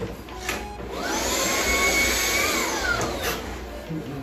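Stick vacuum cleaner switched on about a second in, its motor whine rising to a steady pitch. It winds down near the three-second mark, then starts up again near the end.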